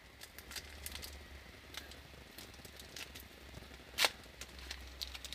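Foil trading-card pack wrapper crinkling and crackling faintly as fingers tear it open, with one sharper crackle about four seconds in, over a low steady hum.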